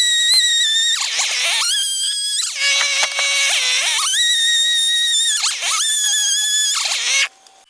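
Chainsaw running and cutting through a log, its high whine rising to full speed and dropping several times as it works, then stopping abruptly near the end.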